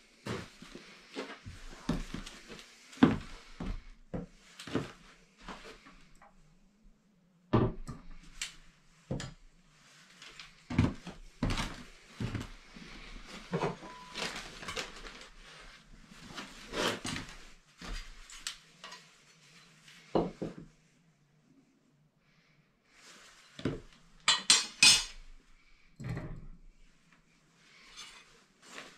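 Irregular metallic clanks, knocks and scrapes as a Cubic mini wood stove and hand tools are handled on a stone hearth slab, with a short lull about three quarters of the way through.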